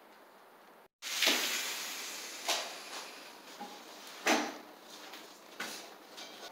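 Faint steady hiss, then, after an abrupt break about a second in, a few sudden knocks and clattering rustles, the two loudest about three seconds apart.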